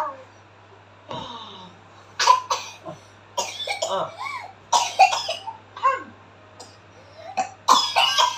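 A young child coughing repeatedly: short, sharp coughs in clusters of two or three, starting about two seconds in and coming on and off until near the end.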